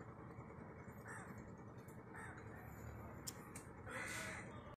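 A crow cawing faintly, a few short caws over quiet outdoor background noise.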